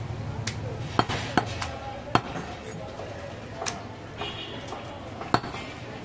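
A butcher's large knife knocking on a wooden log chopping block while goat meat is cut: about six sharp, irregularly spaced knocks.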